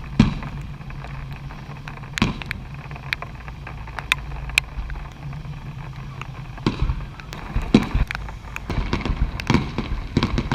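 Fireworks going off: scattered sharp bangs, then a rapid run of crackling pops near the end, over a steady low rumble.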